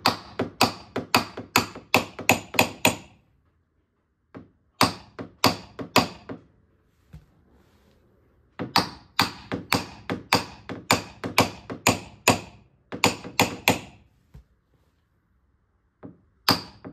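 Hammer striking a tap-down tool held against a Ford Thunderbird's steel quarter panel, in bursts of sharp ringing taps at about four a second with short pauses between runs. The strikes knock down a high crown in the panel from the outside, because there is body filler behind it and pushing from inside would crack it.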